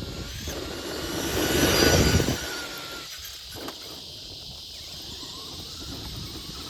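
Traxxas Summit RC truck running at full throttle over sand: its stock brushed electric motor and drivetrain whine while the tyres churn. The sound swells to its loudest about two seconds in, then drops back.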